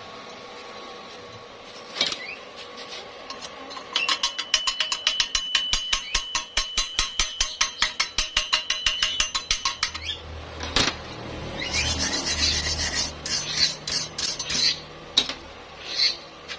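Rasping strokes of a hand tool on metal, quick and regular from about four seconds in, with a steady high ring under them. They give way to rougher scraping and a few sharp knocks.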